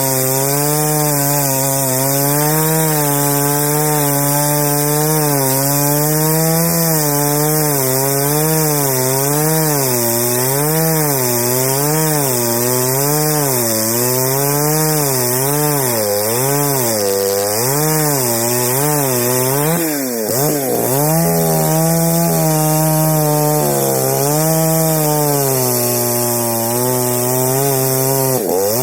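Chainsaw running under load, cutting through a fallen rubber tree trunk. Its pitch wavers up and down about once a second as the chain bites, and sags sharply once, about two-thirds of the way through, before picking up again.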